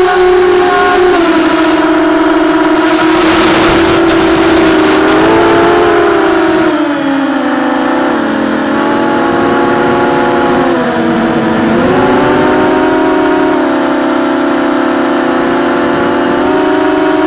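EMAX RS2206 2300KV brushless motor spinning a propeller in flight, a steady whine whose pitch sags and climbs with throttle. A brief rush of noise comes about three seconds in.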